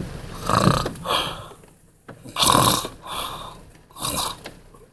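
A man snoring in his sleep: three rasping snores about a second and a half apart.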